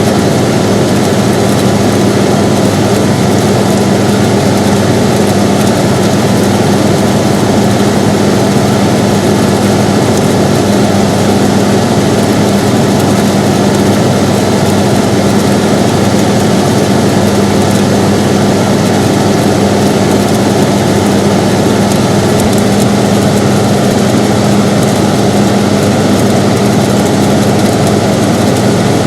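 Air conditioner running steadily: a constant whooshing noise with a low hum underneath.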